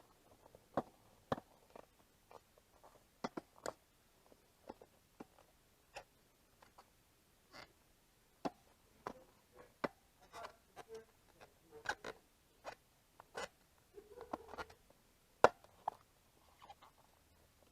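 Hands working a rubber inner tube in behind a stroller wheel's rim: scattered light clicks, taps and rubbing, irregular and faint, with one sharper click about 15 seconds in.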